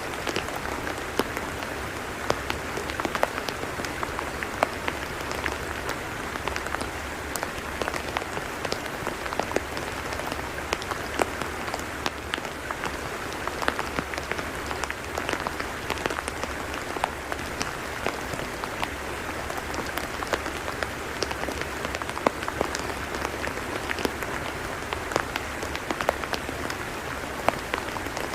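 Rain falling steadily on a tidal mudflat: a dense, even hiss with scattered sharp drop impacts.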